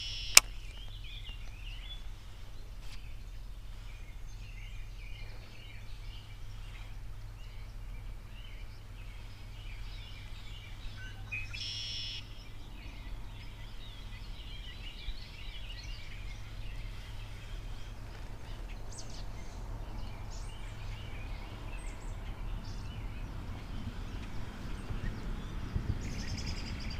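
Birds chirping and calling around the pond, with many short calls throughout and one louder call about twelve seconds in, over a steady low background rumble. A single sharp click sounds right near the start.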